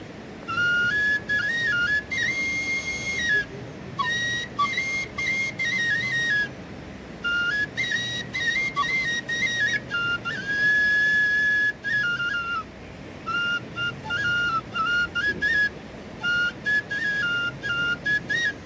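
Solo bamboo flute (bansuri) playing a high melody in short phrases of stepping notes, with brief breath pauses between phrases and one longer held note a little past the middle.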